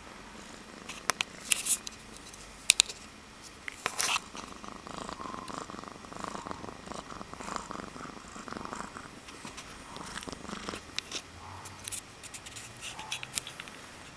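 Domestic cat purring close to the microphone, the purr rising and falling. Sharp clicks come in short clusters in the first few seconds and again near the end.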